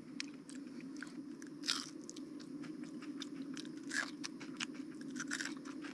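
Crunching and chewing of a crispy pan-fried trout tail: scattered crisp crunches, the loudest about two and four seconds in, over a steady low hum.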